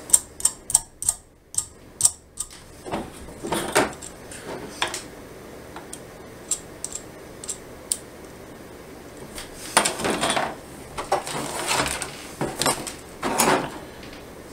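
Small steel nuts and washers clicking and clinking as they are handled and run down the bolts of an aluminium bed plate: a quick string of sharp clicks at the start, scattered single taps, then a few seconds of rattling and scraping about ten seconds in.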